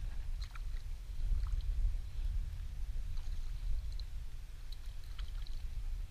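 Steady wind rumble on the microphone, with light lapping and small splashes of lake water at the side of an inflatable boat.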